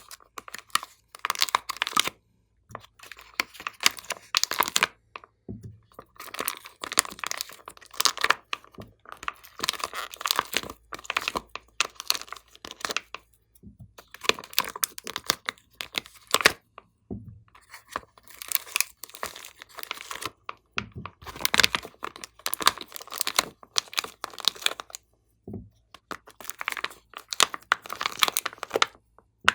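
Glossy slime being worked by hand, in repeated bursts of fine crackling a second or two long with short pauses between them.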